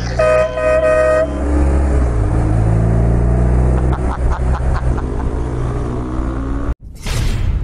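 A vehicle horn toots once for about a second, then a boxer-twin motorcycle engine pulls up through the revs, its pitch rising twice as it accelerates. Near the end the sound breaks off suddenly and a brief rush of noise follows.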